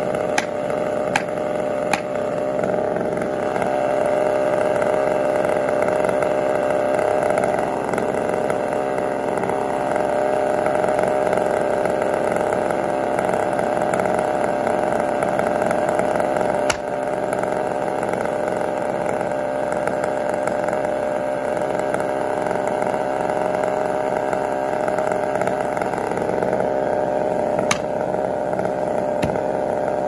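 Two-stroke chainsaw idling steadily, with a few sharp knocks of an axe striking at the tree's trunk, some in the first couple of seconds and again near the end.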